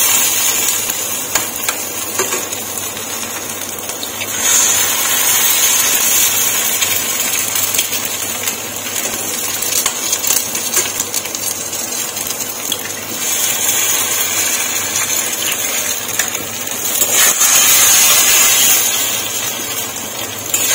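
Food frying in oil in an iron kadai: a steady sizzle, swelling louder twice, with a metal spatula scraping and tapping against the pan. An egg is cracked into the hot oil and fries along with the spiced night jasmine flowers.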